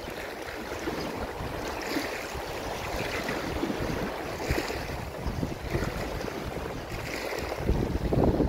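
Wind buffeting a phone's microphone over sea water lapping and splashing in the shallows, with a louder buffet near the end.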